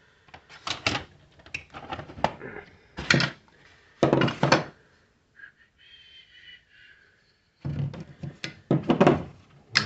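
Knocks, clicks and clunks of the coffee machine's parts and packaging being handled and set down, several in quick runs, with a quieter lull about halfway through.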